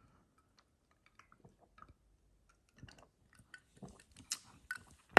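A person sipping iced soda from a glass and swallowing: soft mouth, lip and gulp sounds, mostly in the second half, with a louder click at the very end.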